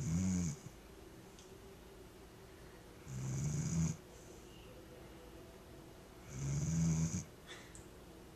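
A Vizsla dog snoring in its sleep: three snores about three seconds apart, each lasting under a second.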